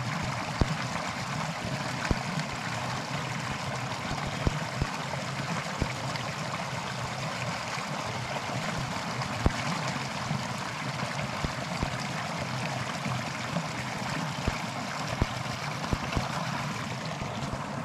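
Small forest creek running over a little rock cascade: a steady rush of water. Occasional low thuds.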